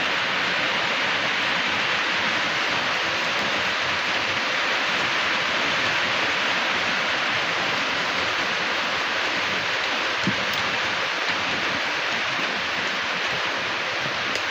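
Steady, even rush of heavy typhoon rain and flowing street floodwater.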